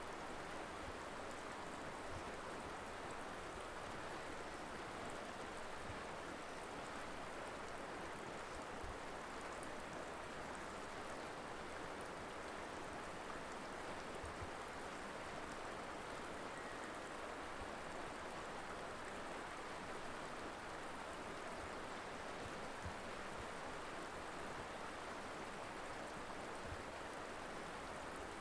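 Colorado River water flowing and rushing over rocks in a steady, even wash of noise.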